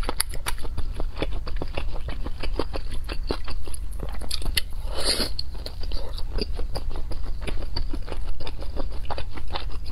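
Close-miked ASMR chewing: a dense run of small wet mouth clicks and smacks as food is chewed, with one louder bite about five seconds in.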